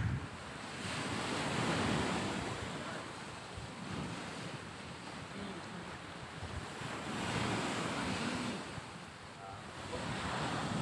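Outdoor rushing noise that swells and eases in slow surges every two to three seconds, with wind buffeting the microphone.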